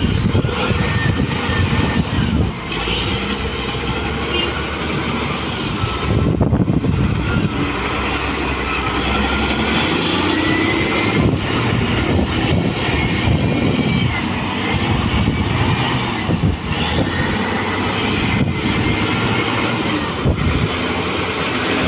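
Heavy construction machinery running steadily, a loud continuous engine rumble with faint higher squealing tones that waver up and down.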